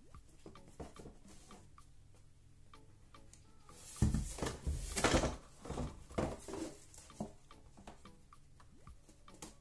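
Folded cardboard Cluedo game board being unfolded and handled on a table: a thump about four seconds in, then a couple of seconds of rustling and scraping as the board is moved and flattened, with small taps and clicks before and after.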